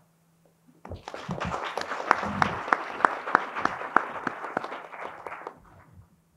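Audience applauding, starting about a second in, with some sharp louder claps standing out, and dying away near the end.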